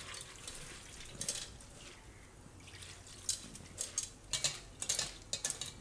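Water splashing and dripping through a stainless steel mesh strainer as wet poha (flattened rice) is washed under water poured from a jug and mixed by hand. It is a steady wet patter, with a run of quick splashes and squelches in the second half.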